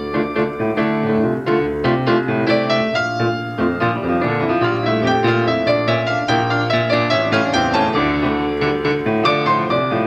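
Piano music: quick runs of notes over held low chords, with the notes coming thickest near the start and the end.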